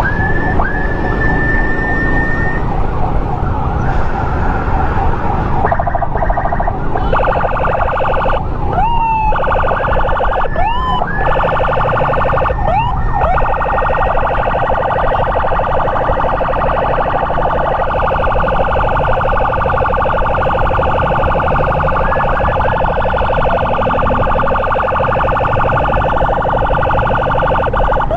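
Electronic emergency siren sounding continuously over the noise of a moving motorcycle and wind: a few quick rising whoops in the first half, then a fast-pulsing steady wail for the rest.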